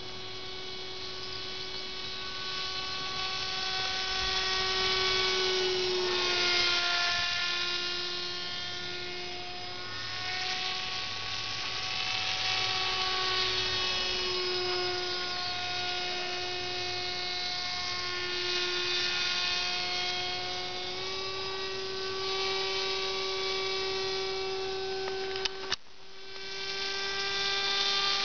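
Electric motor and pusher propeller of a small radio-controlled foam model plane whining overhead. The whine swells and fades as the plane passes, and its pitch steps down and back up several times. Near the end there is a sharp click and a brief dip.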